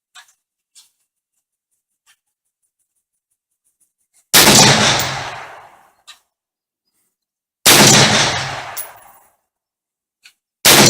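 Three rifle shots from an AR-15 chambered in 6x45 (6mm-223) firing 100-grain Hornady round-nose handloads, about three seconds apart, each fading out over more than a second. A few faint clicks come before the first shot.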